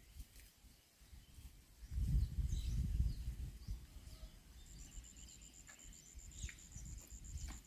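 Outdoor ambience with scattered short bird chirps and a thin, steady high tone in the second half. A low rumble rises about two seconds in and fades about a second and a half later.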